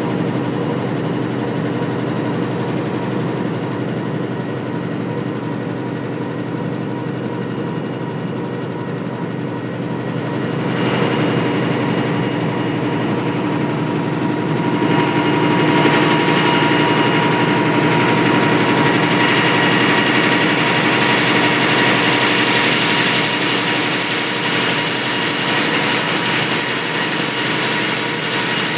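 Multi-unit offset printing press running: a steady mechanical drone with several constant tones over a noisy hiss, growing louder and hissier about ten seconds in and again around fifteen seconds.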